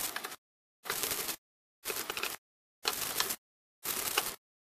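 Screwdriver turning out a mounting screw on a Briggs & Stratton primer-type carburetor, in five short twists about a second apart.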